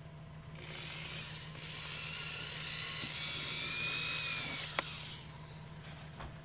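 Power drill with a 3 mm (1/8-inch) bit drilling a hole through the car's front bumper. The motor whines for about four and a half seconds, rising in pitch as it runs, then drops off, with a single sharp click as it stops.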